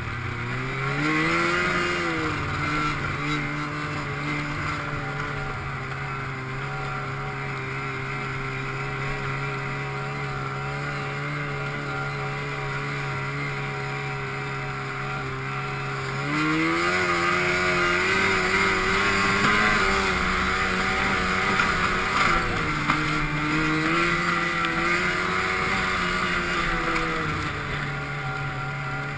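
Snowmobile engine running while under way. It revs up at the start, holds a steady speed for a while, then throttles up again a little past halfway, with the pitch rising and falling before it eases off near the end.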